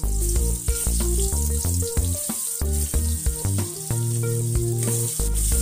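Sliced shallots and garlic sizzling as they fry in hot oil in a wok, with background music playing over it.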